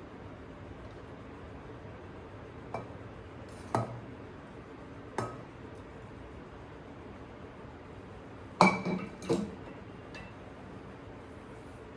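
Glass and ceramic dishes clinking as they are set down and handled: single clinks about three, four and five seconds in, then a louder cluster of knocks near the nine-second mark with a short ring.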